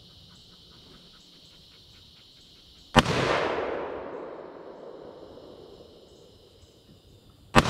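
Two gunshots from an AR-style pistol, about four and a half seconds apart, the second near the end; each sharp crack is followed by a long echo that fades away over about three seconds.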